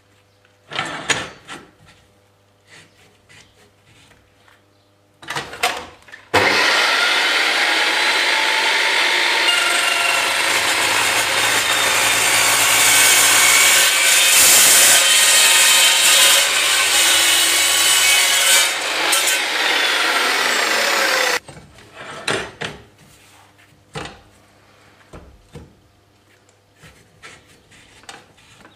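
Makita metal-cutting chop saw cutting through mild steel angle clamped in its vice: a loud, steady cut that starts about six seconds in and stops abruptly about fifteen seconds later. Before and after the cut, short clanks and knocks as the steel is set in the vice and the cut pieces are handled.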